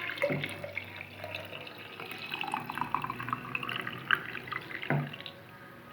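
Boiling water being poured into a glass jar over caraway seeds, splashing and trickling before it tapers off near the end.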